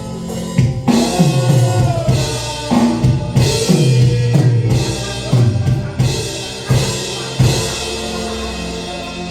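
Live worship band with the drum kit to the fore: kick, snare and tom hits about every half second over low bass notes that slide downward, then settling into a steadier held chord near the end.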